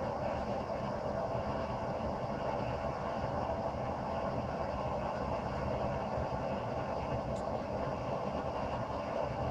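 Propane forge running, its blower-fed burner giving a steady, even rushing noise.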